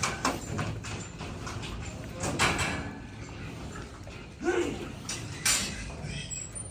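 Pigs grunting, with a short call that rises in pitch about four and a half seconds in and a few brief noisy bursts.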